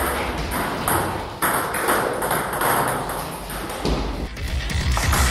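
Table tennis rally: the celluloid-type ball clicks off paddles and the table top, one sharp hit about every half second. About four seconds in, music with a heavy beat comes in under the hits.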